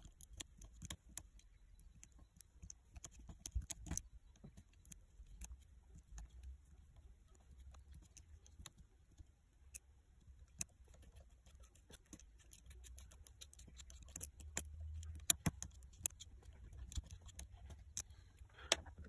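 Small sharp metal clicks and light scraping, irregular and soft, as a bit screwdriver turns slotted set screws down into the vise body; one sharper click about fifteen seconds in.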